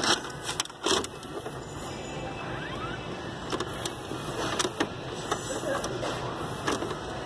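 VHS cassette being pushed into an Emerson EWD403 VCR/DVD combo. There are a few sharp clicks in the first second, then the deck's loading mechanism runs with a small motor whirring and scattered clicks as it takes the tape in.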